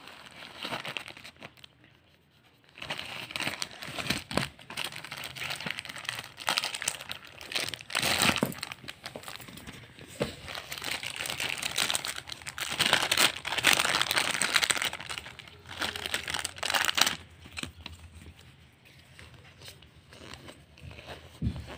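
Plastic packaging crinkling and tearing by hand in uneven bursts as a courier mailer and foil Pokémon booster-pack wrappers are opened, starting about three seconds in, loudest in the middle and quieter near the end.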